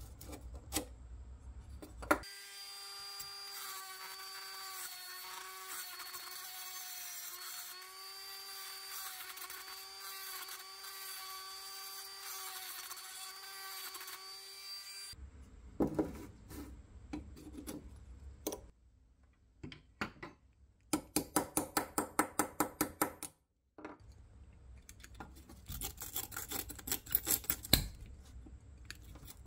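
A small cordless drill spins a bit against the rusty steel rivets of a 1959 Tonka dragline's boom, with a steady motor whine for about twelve seconds before it stops. After that come clicks and scrapes of the loose steel parts, and two quick runs of sharp metal taps.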